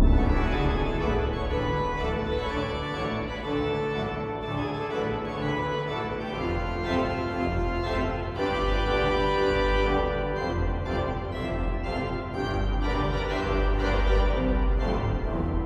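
Pipe organ playing a sequence of held notes on the manuals, with a deep pedal bass joining about six seconds in.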